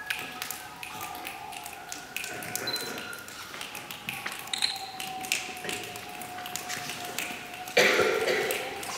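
A choir making a rain effect with their hands: scattered finger snaps and taps like falling raindrops over faint held tones. The effect swells suddenly louder and denser about eight seconds in.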